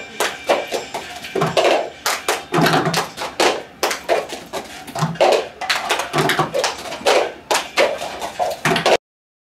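A group doing the cup-rhythm routine: hand claps and cups tapped, passed and knocked down on tabletops in a repeating pattern. It cuts off suddenly near the end.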